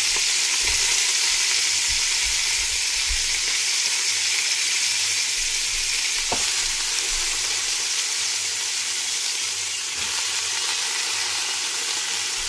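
Garlic frying in hot oil in a metal pot as squash leaves, vine tips and blossoms are added: a steady, even sizzle, with a single faint click about six seconds in.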